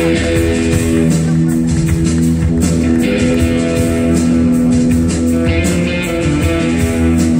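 Live rock band playing loud: electric guitar holding long sustained notes over drums keeping a steady beat.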